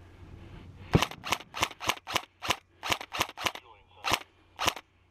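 KWA AEG3 ERG electric airsoft rifle firing in semi-auto: about eleven quick shots in some four seconds, starting about a second in, the first the loudest.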